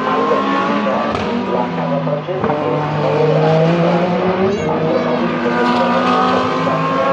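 Several race car engines running at once, their pitches rising and falling as the cars accelerate, shift and pass. A short high whine sweeps up and down about four and a half seconds in.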